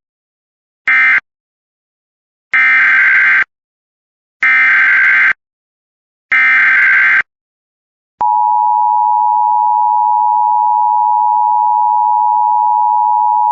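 Emergency Alert System tones. About a second in comes a short buzzing SAME data burst, the last of the end-of-message codes. Three longer, loud data bursts follow about two seconds apart, the header of the next alert, and about 8 seconds in the steady two-tone EAS attention signal starts and holds.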